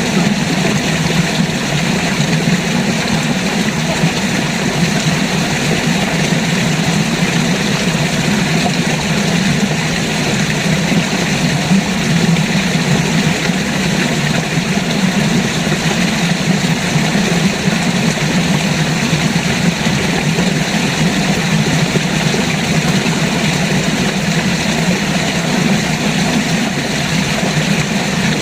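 River water rushing, a steady unbroken noise with a deep low rumble beneath an even hiss.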